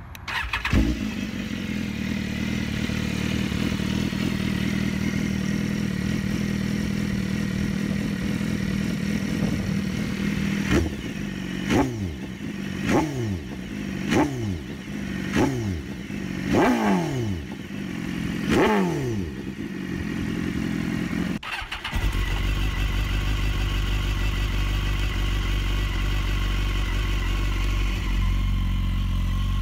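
BMW S1000RR inline-four with an SC-Project exhaust idling steadily, then blipped about seven times, each rev rising sharply and falling back to idle. After a sudden break a little past twenty seconds, a steady engine note from another S1000RR with a heavier low end.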